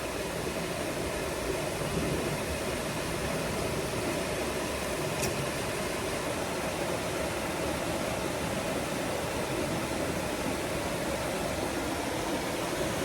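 Steady rush of water from a small waterfall and stream over rocks, with one faint sharp click about five seconds in.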